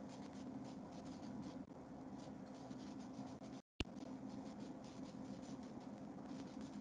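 Faint room noise over a video-call microphone: a low steady hum with light, irregular clicks. The sound cuts out completely for a moment about three and a half seconds in and comes back with a click.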